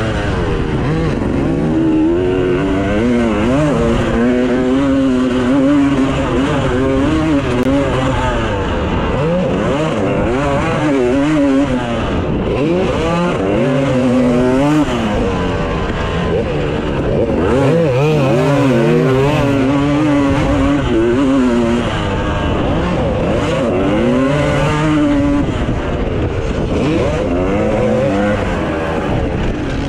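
250cc two-stroke dirt bike engine revving hard and dropping back over and over, its pitch climbing and falling as the throttle is worked and the gears change.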